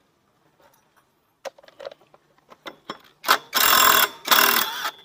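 An impact wrench hammers in two short bursts, a second apart, loosening a nut in a scooter's CVT. A few small clicks of tool handling come before it.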